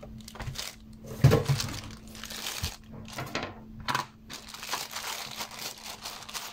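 Clear plastic wrapping around a phone box crinkling and rustling in irregular bursts as hands handle it and pull it off, with a louder crackle about a second in.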